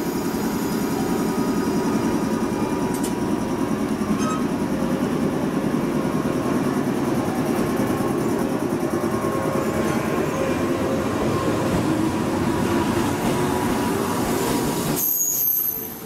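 JR Kyushu 415-series electric train pulling out of the platform and gathering speed past the listener, with a steady rumble of wheels and running gear and a light hum over it. The sound drops away sharply for about a second near the end.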